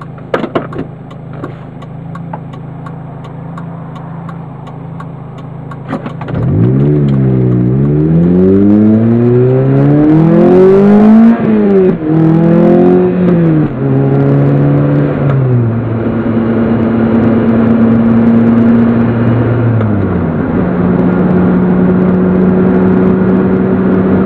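Lotus Elise engine heard from inside the cabin. It runs low and steady for about six seconds, then pulls away hard, the engine note climbing in pitch. It drops sharply at upshifts around 11 and 14 seconds in and again near 20 seconds, then settles into a steady cruise. The gear changes are smooth, with no grinding.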